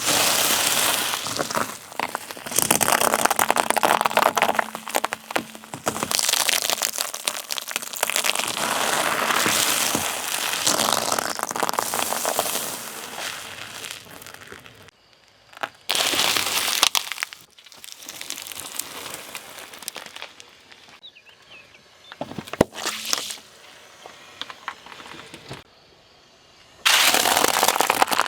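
Things being crushed under a car tyre: long stretches of crunching, crackling and crumpling, broken by a few short pauses, with a couple of sharp cracks about two-thirds of the way through.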